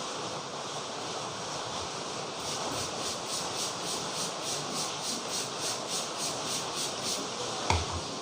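Barber's hands rubbing briskly back and forth over a customer's hair and scalp during a head massage, an even rhythm of about four or five hissy strokes a second, ending with a single thump near the end. Steady outdoor background noise runs underneath.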